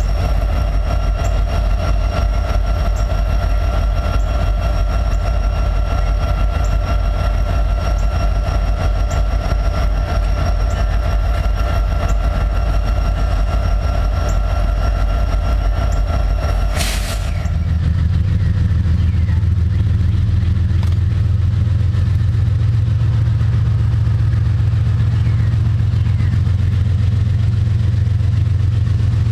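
Ferromex EMD SD70ACe diesel-electric locomotive running steadily: a low diesel drone with a constant whine above it. After a sudden cut about 17 s in, a steady heavy low rumble takes over as a distant diesel-hauled train approaches.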